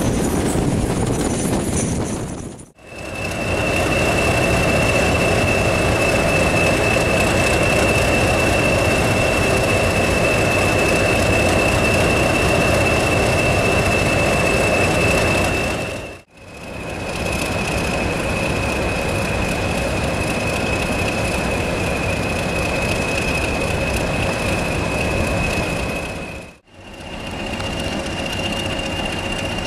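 English Electric Class 20 diesel locomotive with its turbocharged engine running, a steady high whistle over the engine note, in passages broken by abrupt cuts. Before the first cut, about three seconds in, comes the running noise heard aboard a moving diesel train.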